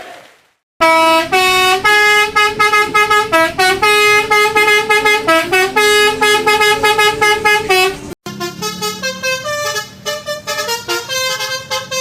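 Horn honks played as a tune: rapid short notes stepping up and down in pitch. It breaks off briefly about eight seconds in, then goes on as a second run of honked notes.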